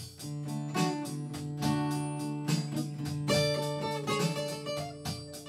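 Acoustic guitar playing an instrumental blues break: a run of picked notes and chords with low bass notes ringing under them.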